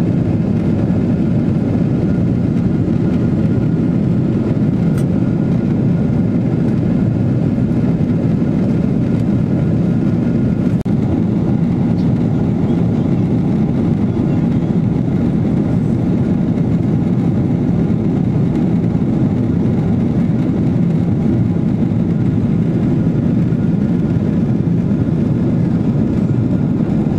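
Steady low roar of a jet airliner in flight, engine and airflow noise heard inside the passenger cabin.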